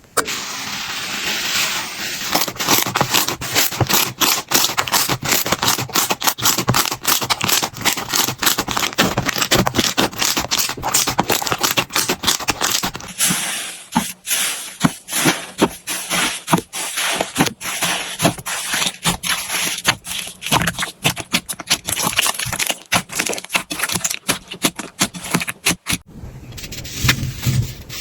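Slime being worked, making rapid crackling and popping clicks. The clicks come densely at first, then thin out and come more spaced about halfway through.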